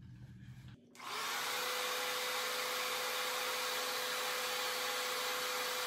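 Hair dryer with a diffuser attachment switched on about a second in, then running steadily: an even rush of blown air with a steady whine. The hair is cupped in the diffuser bowl and held against the head (pixie diffusing).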